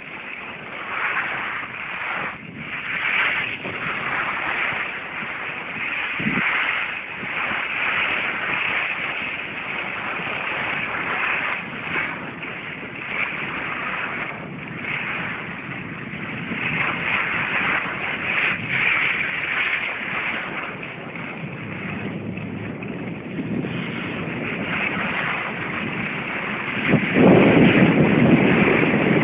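Wind rushing over the microphone, a steady noisy hiss that swells and fades, getting louder near the end.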